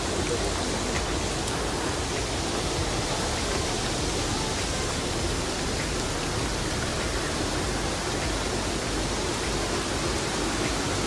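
Waterfall rushing, a steady, even noise of falling water.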